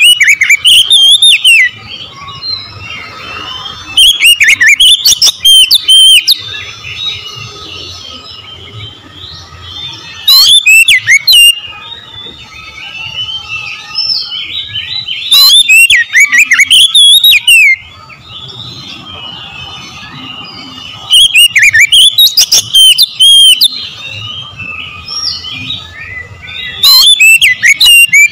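Oriental magpie-robin (kacer) singing: loud bursts of rapid, varied whistled phrases, each a second or two long and coming about every five to six seconds, with quieter chirps in between.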